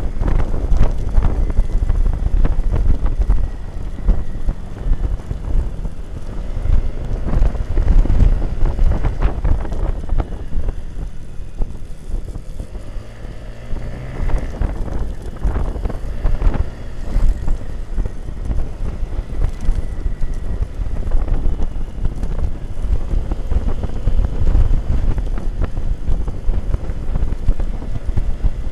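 Wind buffeting the microphone of a motorcycle-mounted camera while riding, with the motorcycle's engine running underneath. The rush eases for a few seconds around the middle, then builds again.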